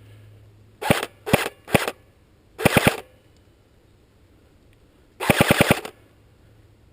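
Airsoft gun firing: three quick shots about a second in, then a short rapid burst, and a longer rapid burst about five seconds in.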